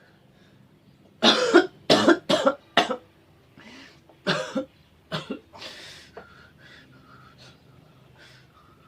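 A person coughing in a fit: four harsh coughs in quick succession, then a second, softer run of coughs a second or so later.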